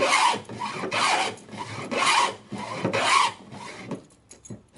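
Small wooden hand plane shaving a board in four quick strokes, about one a second, with a rasping swish on each push. The strokes stop near the end, leaving a few light knocks of wood on wood.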